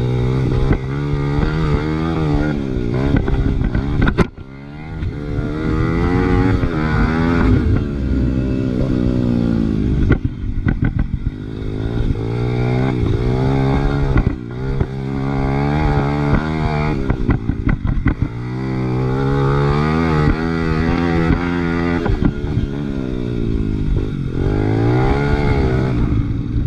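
Big-bore Honda XR100R's single-cylinder four-stroke engine being ridden hard, its pitch climbing and falling over and over through acceleration, shifts and throttle lifts, with sudden drops about four, ten and fourteen seconds in.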